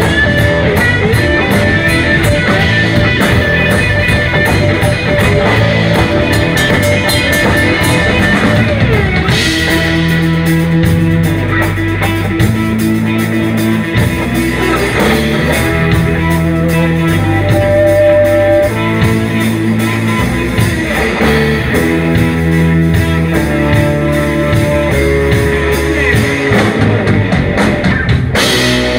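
Live electric blues band playing an instrumental passage: electric guitars over bass, keyboard and a drum kit, with held and bent guitar notes and no vocals.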